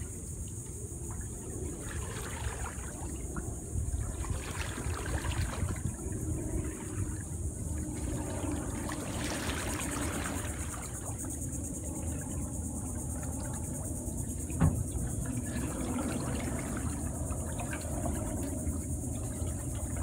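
Canoe paddle strokes swishing and trickling in the water beside an aluminum canoe, recurring every few seconds, over a steady high buzz of insects. One sharp knock stands out about two-thirds of the way through.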